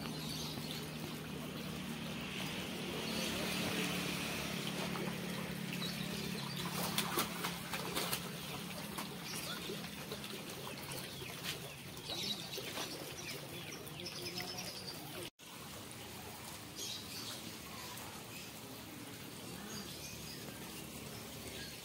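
Water splashing and a fish flapping as hooked freshwater pacu (bawal) are played at the surface and landed, over a low steady hum that fades out about halfway. The sound cuts out for an instant about two-thirds through.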